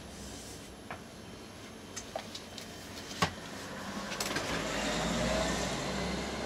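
A shop's glass-door drinks fridge being pulled open. There are a few light clicks and knocks, the sharpest a little over three seconds in, and from about four seconds a steady hum and hiss while the door stands open.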